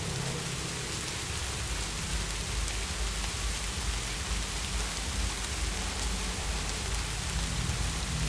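Heavy rain falling steadily, an even hiss of drops with a low rumble underneath that strengthens about two seconds in.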